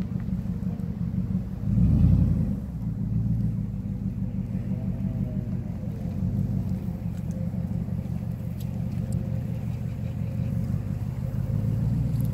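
A vehicle engine idling with a steady low rumble, swelling louder briefly about two seconds in.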